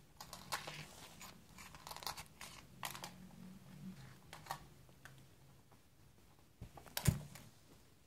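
A British Shorthair kitten playing on a laminate floor with a spiky rubber ball: quick scattered scrapes, taps and scuffs of paws and claws, then one louder thump about seven seconds in.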